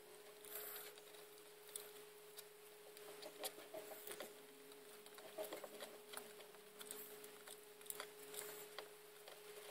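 Faint, scattered clicks and light taps from a mini hot glue gun and plastic parts being handled against a plastic model hull, over a faint steady hum.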